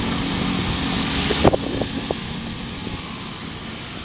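Riding noise from a motorcycle: wind rushing over the microphone with the bike's engine underneath. The hiss drops sharply about a second and a half in, and the sound fades as the bike slows.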